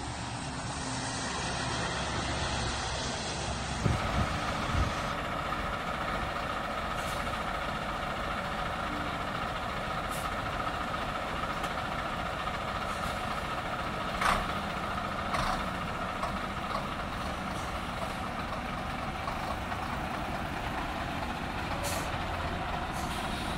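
Heavy Scania diesel trucks running steadily, with a few brief sharp noises, the loudest about 14 seconds in.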